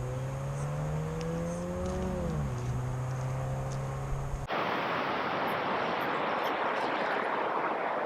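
A low engine-like hum that rises slightly in pitch, then drops about two and a half seconds in. It cuts off abruptly about four and a half seconds in and gives way to a steady rushing noise.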